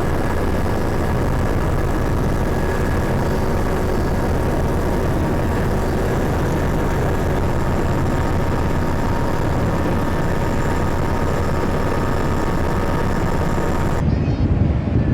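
Steady engine drone with several faint high whining tones over it, the kind made by a vehicle or aircraft. About a second before the end it cuts abruptly to a louder, rougher low rumble.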